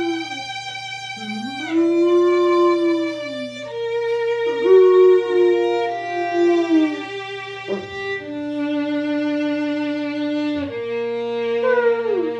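Violin playing long held notes while an Alaskan malamute howls along, its howls rising and then falling in pitch, with a falling glide near the end.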